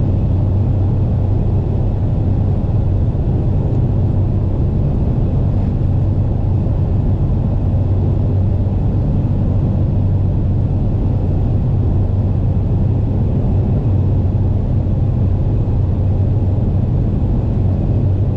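Car cruising at a steady highway speed, heard inside the cabin: a constant low drone of engine and road noise.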